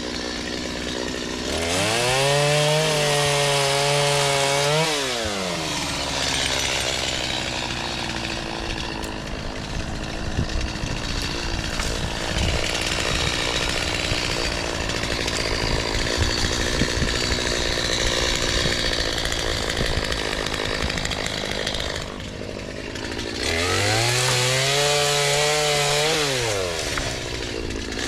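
Gas chainsaw revving up, then running under load through crepe myrtle wood for a long stretch with a rough, crackling cutting sound. It drops back briefly, then revs up again near the end.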